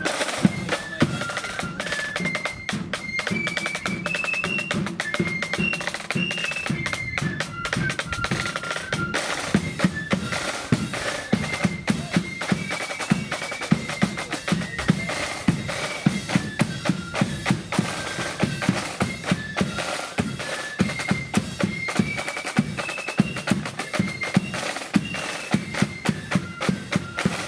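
Marching flute band playing a march: a high flute melody over rattling snare drums and a steady bass drum beat.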